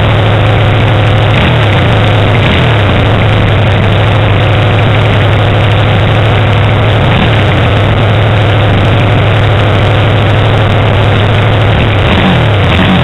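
Small motorcycle engine running loud and steady while riding, heard close from the bike itself, with its pitch briefly dipping and climbing back a couple of times early on and again near the end.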